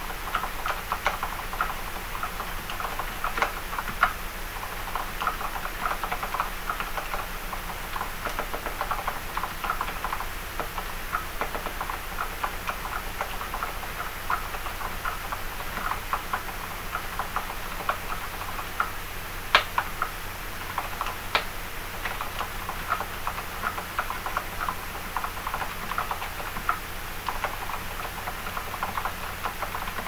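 Typing on a mechanical keyboard with lubed silent red linear switches fitted with light 20 g actuation / 25 g bottom-out springs: a steady, fast patter of keystrokes, with two louder key strikes about two-thirds of the way in.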